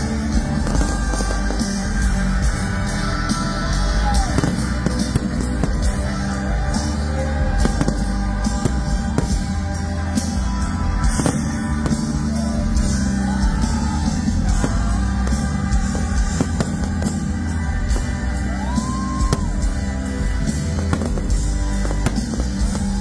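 Live rock band playing over a stadium sound system, heard from within the crowd, with a voice singing at times.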